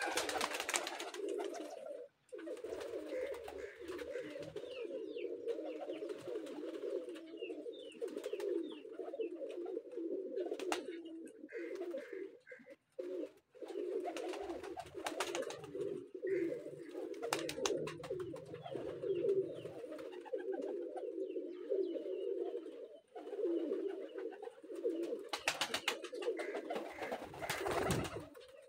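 A flock of domestic pigeons cooing without a break, many birds overlapping in a low warbling drone, with a few brief wing flutters near the end.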